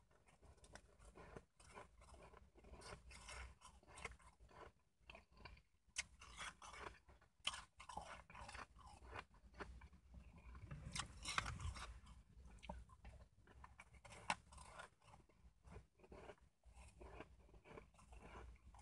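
Shaved ice being bitten and chewed: a quiet, irregular run of crunches, with a louder stretch of crunching about eleven seconds in.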